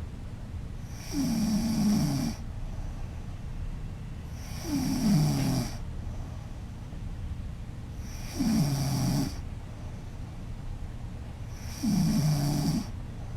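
A woman snoring loudly: four snores, each about a second long, coming about every three and a half seconds in a regular breathing rhythm.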